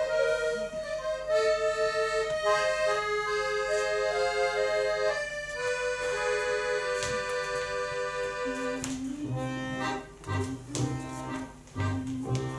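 Accordion playing a melody in held notes; about eight and a half seconds in, a lower, choppy rhythmic accompaniment takes over.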